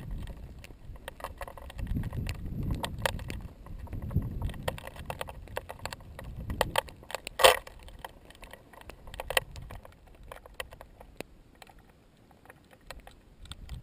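Cooling lava crust crackling as a molten pahoehoe lobe creeps forward: scattered sharp clicks and snaps, with one louder crack about seven and a half seconds in. A low rumble runs under the first half.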